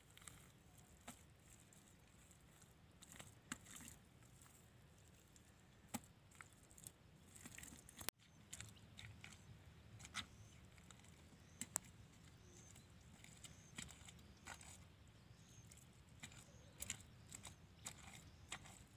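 Faint, scattered squelches and crackles of wet clay mud being scooped and pressed by bare hands, over a low steady background rumble.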